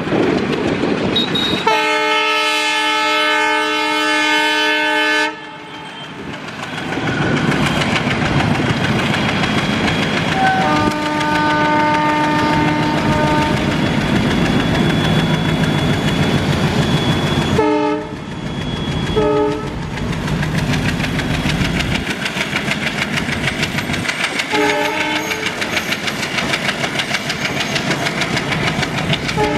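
ALCo diesel locomotive hauling a passenger train over a bridge, its engine running and the wheels clattering throughout. The locomotive horn gives a long, loud blast near the start and a softer blast several seconds later, then three short toots and, near the end, two more short toots.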